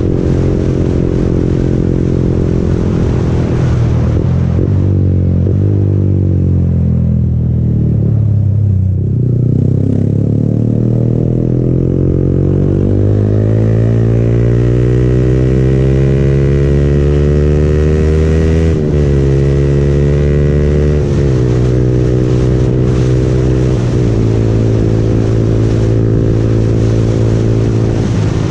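Yamaha MT-15's single-cylinder engine through an Akrapovic aftermarket exhaust, ridden on the road. Its pitch falls as the throttle is eased a few seconds in, then climbs steadily under acceleration. Two upshifts in the last third each drop the pitch suddenly.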